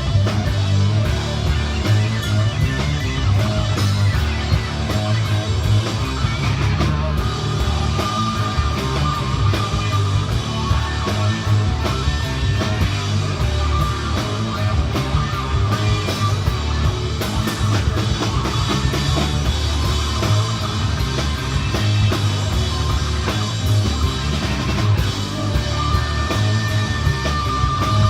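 Rock music with guitar and drum kit, playing at a steady loud level.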